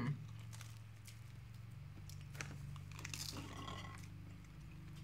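Faint chewing and biting of a toasted everything bagel spread with cream cheese, with small crunchy crackles, over a steady low hum.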